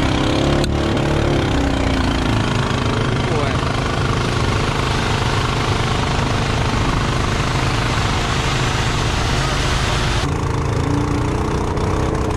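Small gasoline engine driving a transfer pump runs steadily while liquid fertilizer gushes through a hose into a poly sprayer tank. About ten seconds in it cuts to a tractor engine running.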